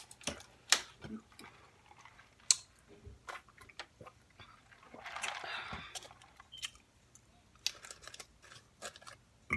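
Close-miked mukbang eating sounds: chewing with scattered sharp mouth clicks and smacks, and a longer soft rushing noise about five seconds in.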